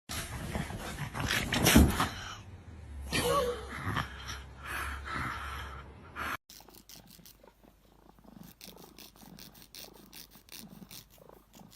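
A pet animal making noises for about six seconds, with some short pitched calls among noisy rustling. It cuts off suddenly, and a much quieter passage follows.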